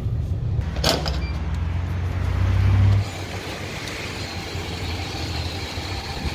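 Car engine running, heard from inside the cabin as a low hum that swells slightly and then cuts off suddenly about three seconds in, with a single sharp click about a second in. After that there is only a quieter, even background with a faint high steady tone.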